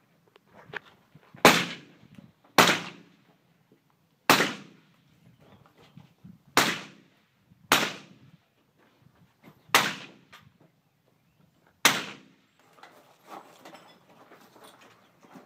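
Seven rifle shots fired one at a time, about one to two seconds apart, each a sharp crack with a short ringing tail.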